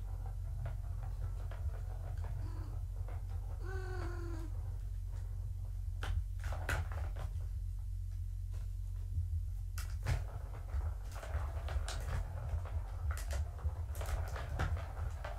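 A cat meows once, about four seconds in. From about six seconds on come quick, irregular clicks and knocks as kittens bat at a Catit plastic trackball toy, over a steady low hum.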